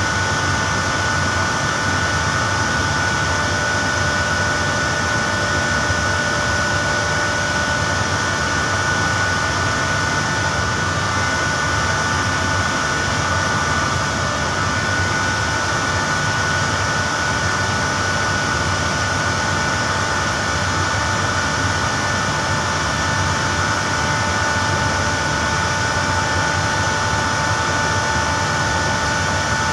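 Air-handling and refrigeration plant machinery running steadily: a loud, even rushing noise with a constant high whine over it.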